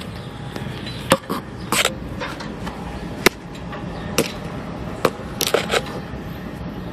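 A dog's muzzle and tongue knocking and licking against a phone held at its mouth, heard as sharp knocks and scrapes right on the microphone, about seven in a few seconds, over a steady low rumble.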